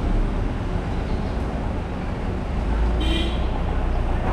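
City street ambience: a steady rumble of road traffic, with a brief high-pitched tone about three seconds in.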